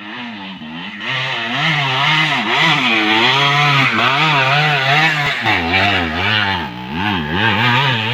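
Small engine running with its pitch swinging up and down over and over, as when it is revved repeatedly; it settles into a lower pitch about five and a half seconds in.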